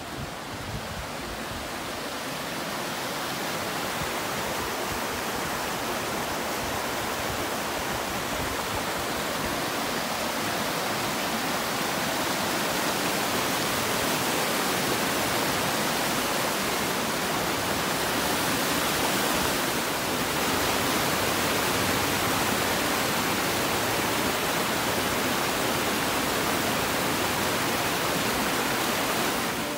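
Steady rushing noise of flowing water, growing louder over the first dozen seconds and then holding steady.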